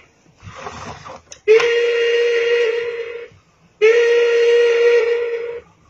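Electronic sound effect from the Chicco Animal Train toy's speaker: a short softer sound, then two identical steady tones, each close to two seconds long, one after the other.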